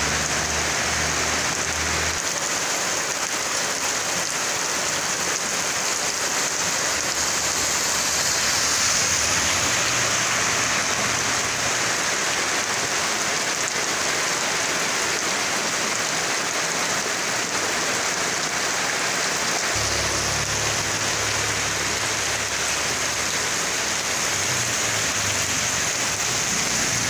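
Heavy rain falling steadily on a wet asphalt street, an even hiss without a break. A low hum sits under it at the start and again from about three-quarters in.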